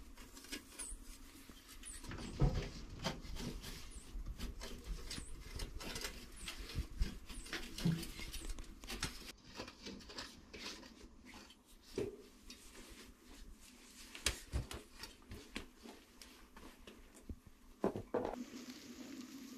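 Hand tools scraping and knocking against packed earth in irregular strokes.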